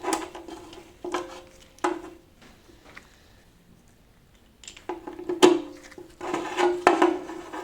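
Metal tools and engine parts clanking and clinking, each hit ringing briefly. There are three clanks near the start, a pause of about two seconds, then a busier run of clanks in the second half.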